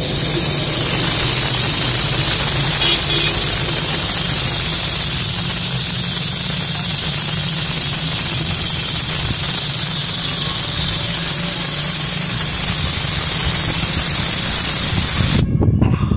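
Compressed air and water blasting out of the open bottom drain ball valve of an air-compressor tank with a loud, steady hiss, draining condensed water while the tank is still under pressure. The valve is shut near the end and the hiss cuts off suddenly.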